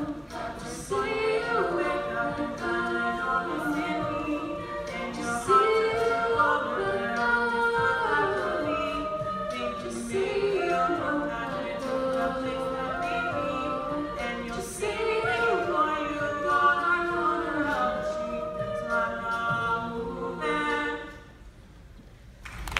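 Mixed a cappella group singing in close harmony behind solo voices, with vocal percussion clicking out the beat. The singing stops about 21 seconds in, leaving a short hush.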